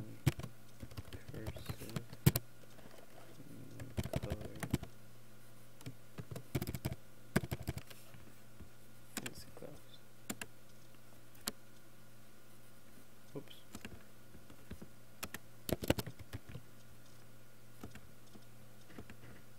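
Typing on a computer keyboard: irregular runs of keystrokes with pauses between them, over a low steady hum.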